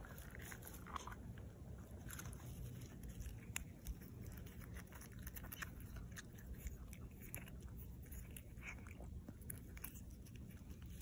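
A puppy faintly chewing and licking a small piece of bacon from an opened plastic Easter egg, with scattered small smacks and clicks.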